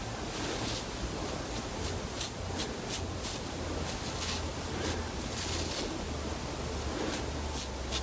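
Short, soft scratchy rustles repeating a few times a second over a steady hiss, typical of small brush strokes through hair while edges are laid down.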